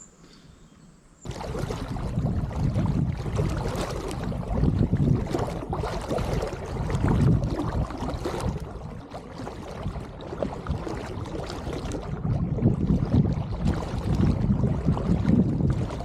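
Strong wind buffeting the microphone over the rush of tidal water and surf flooding into a coastal inlet, starting abruptly about a second in and surging unevenly.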